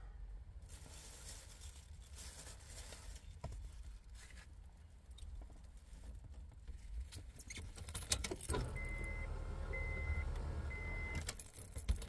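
Rustling and clicking of handling inside a parked car, then about nine seconds in a car's warning chime beeps three times, evenly spaced, over a low hum.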